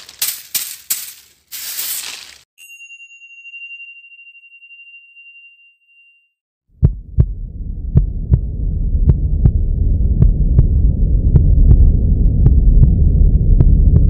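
Logo sting: crackling noise bursts, then a steady high beep held for about three seconds. After a second of silence a loud, low throbbing drone starts, with sharp ticks about two to three times a second, a steady pulse like a heartbeat.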